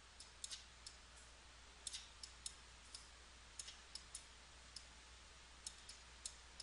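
Faint computer mouse clicks, about a dozen at irregular intervals, some in quick pairs, over a low steady hum.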